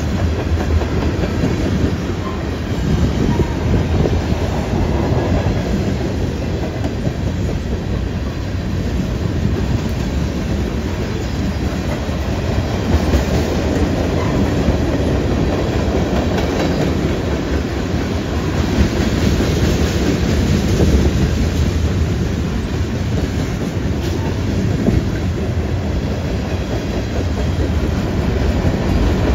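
Loaded freight cars (tank cars and covered hoppers) rolling past close by: a steady rumble of steel wheels on the rails, with the clickety-clack of wheels over the track.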